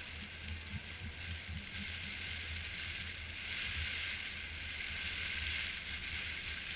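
Wind buffeting a camera microphone set low on open sand, an uneven low rumble under a steady hiss.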